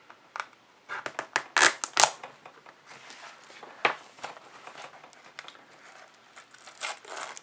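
Plastic sealant wrap on a trading-card hobby box crinkling and tearing as it is cut and peeled off, in a string of irregular sharp crackles, thickest about a second or two in.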